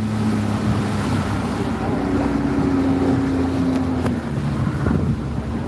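Outboard motor of a fibreglass fishing boat running under way, its note shifting up for a couple of seconds midway, with wind buffeting the microphone and water rushing past the hull.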